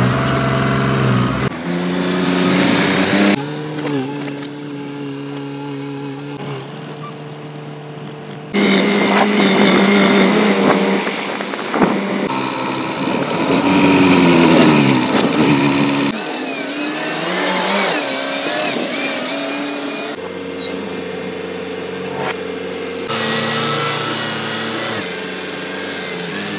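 A run of short clips of diesel tractor and backhoe loader engines running, each cut off abruptly and replaced by another, with the engine pitch rising and falling as one is revved partway through.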